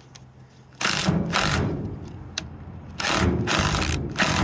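Cordless drill driving a socket on a rusted bolt, run in two short bursts, one about a second in and one near the end, with a ratcheting, mechanical sound. It is being run back and forth, loosening and tightening, to break the rust free.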